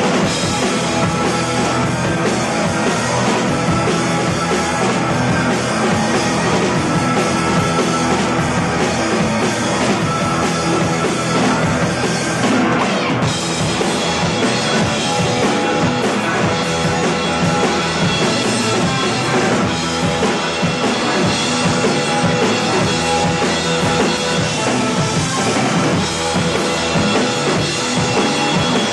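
Rock music with a prominent drum kit and bass drum, playing loud and steady.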